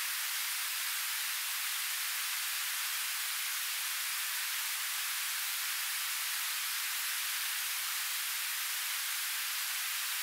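Steady, even rushing hiss of flowing river water, thin and without any low rumble.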